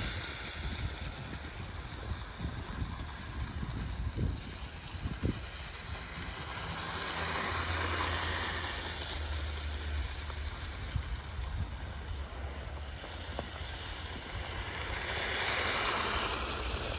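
RC snowmobile running over snow, with wind rumbling on the microphone; it grows louder about eight seconds in and again near the end as the snowmobile passes close.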